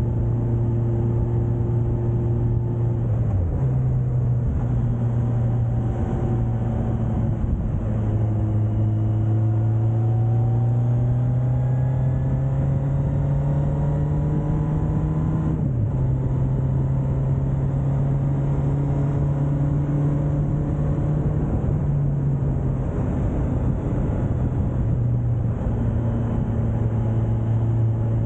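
Suzuki GSX1250FA's inline-four engine running under way. Its pitch climbs steadily for several seconds under acceleration, then drops sharply at an upshift about halfway through and settles. Wind and road noise rush over the bike throughout.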